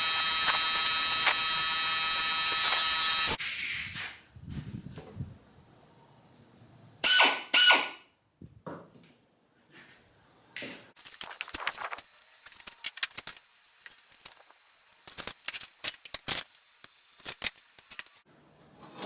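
Air compressor running steadily, then cutting off abruptly about three and a half seconds in. After that, scattered light clicks and rattles, with two short, louder scraping bursts about seven seconds in.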